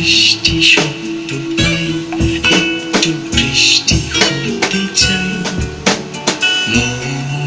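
A drum kit played with sticks to a steady beat, along with a song carried by guitar.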